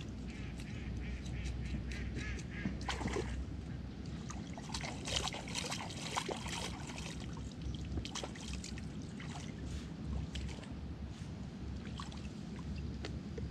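A knife scraping the scales off a small fish in short, repeated strokes. Water splashes about five to six seconds in as the fish is rinsed in the shallows.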